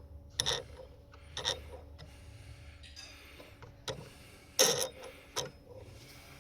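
RockMow S108 robotic lawn mower giving irregular mechanical clicks and knocks, about five, the loudest a little past halfway, over a faint steady hum.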